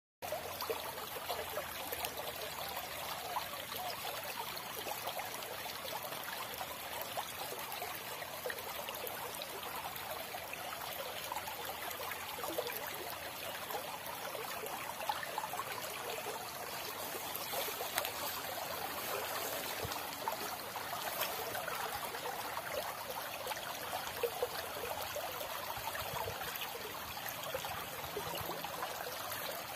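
Shallow rocky stream running steadily over stones, an even trickle of flowing water.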